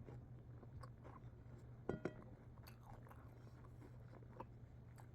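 Faint chewing and biting of food close to the microphone, with small scattered clicks and two sharper clicks about two seconds in, over a low steady hum.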